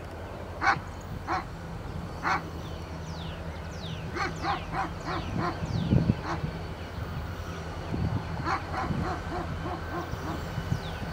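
A dog barking: single barks at first, then quick runs of five or six. Under it runs the steady low hum of approaching diesel locomotives, with a heavier low rumble about six seconds in.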